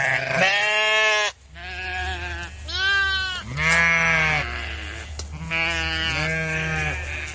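Sheep bleating, about six wavering calls one after another, with the loudest near the start.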